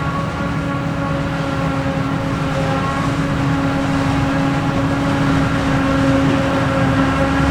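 Steady mechanical hum of running machinery: one constant droning pitch with higher overtones over a low rumble, slowly growing a little louder.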